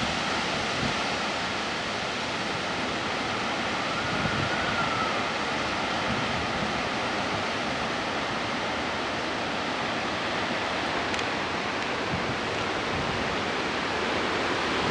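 Steady, even rushing noise of a severe thunderstorm, with no clear gusts or breaks.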